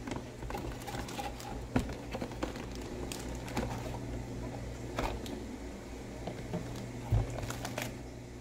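Hands handling a cardboard toy box and a sticker sheet: rustling, scraping and small taps, with a louder knock about seven seconds in, over a steady low hum.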